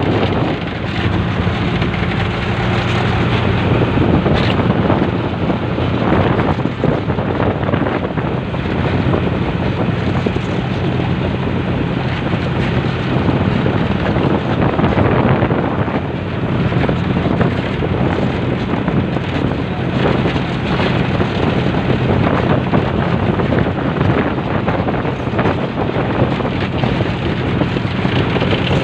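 A cantrang fishing boat's engine running steadily at an even pitch, with wind buffeting the microphone.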